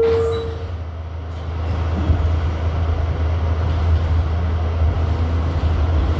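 R68 subway train pulling out of the station, heard from inside the car: the second note of the door chime dies away in the first moment, then a low rumble builds as the train picks up speed, louder from about two seconds in, with a faint rising whine near the end.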